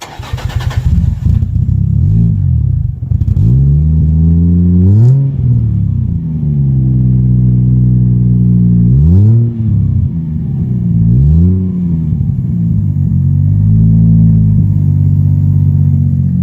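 Toyota Cressida's swapped 1JZ turbo inline-six catching right at the start, then idling through its exhaust with a Magnaflow muffler and being blipped several times, each rev rising and falling quickly. Still loud, but less droning than with the straight pipe.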